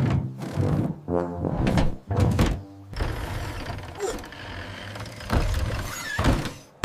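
Cartoon background music with sound effects.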